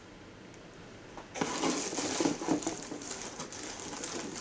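Plastic bubble wrap crinkling and rustling as a bowling ball is unwrapped and pulled from its packing box, starting about a second and a half in.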